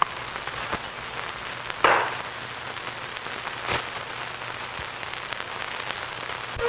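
Hiss and crackle of an old optical film soundtrack, with scattered clicks and pops and a louder burst of noise about two seconds in, over a steady low hum.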